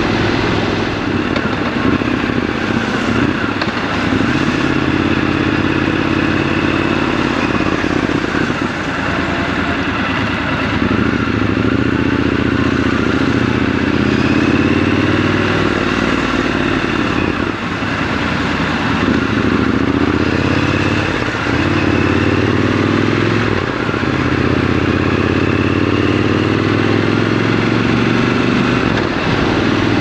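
Triumph Scrambler 1200 XC's 1200 cc parallel-twin engine and exhaust heard from the rider's seat while riding in traffic. The engine note rises and falls several times as the bike accelerates and eases off.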